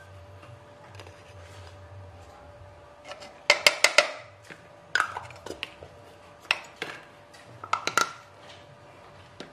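Spoon and kitchen containers clinking and knocking in several short clusters about a second apart, as ingredients are measured into a food chopper bowl.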